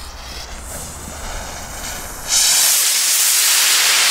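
A Weco Targa 'Rebel' firework rocket's fuse sputtering, then a little over two seconds in the rocket motor ignites and lifts off with a sudden loud rushing hiss that carries on as it climbs.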